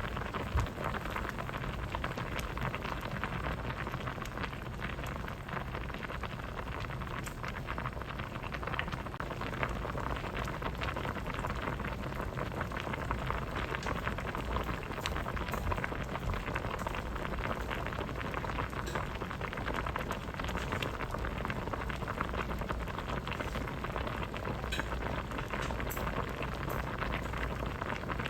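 Pot of vegetable soup boiling: a steady bubbling with many small pops.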